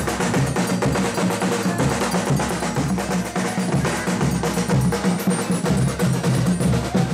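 Folia band playing a chula, with drums and percussion keeping a steady, driving beat.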